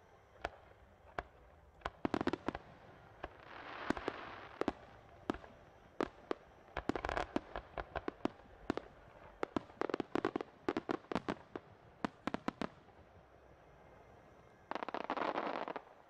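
Fireworks display: many sharp bangs of aerial shells bursting, some coming singly and some in quick clusters of several. About four seconds in there is a brief swell of noise, and near the end a dense rush of noise lasting about a second.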